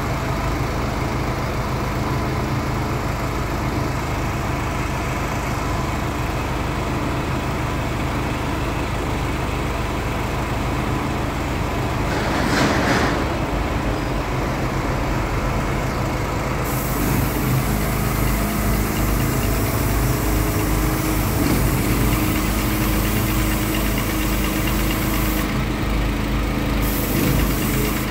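Site machinery engines running steadily. There is a brief louder rush about halfway through. A high hiss comes in about two-thirds of the way and stops for a moment near the end.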